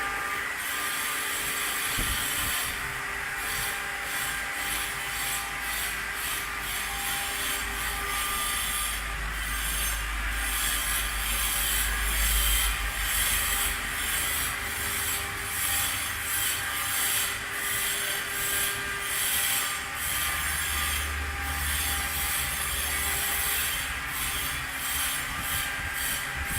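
CNC stone-carving machine running, its spindle cutting into stone with a steady grinding, rubbing noise over a few held motor tones.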